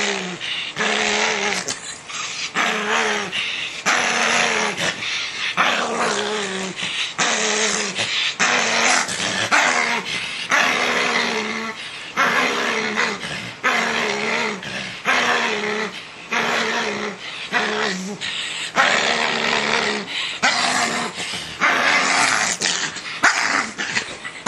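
Dog growling in short, rough bursts, about one a second, as it mouths and plays while being brushed.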